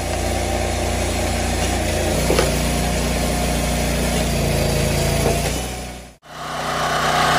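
Engine of a hydraulic horizontal log splitter running steadily as the ram drives a log through the splitting wedge, its hum growing heavier about two seconds in as the ram meets the log. The sound cuts out briefly near the end and another log splitter's engine comes in, louder.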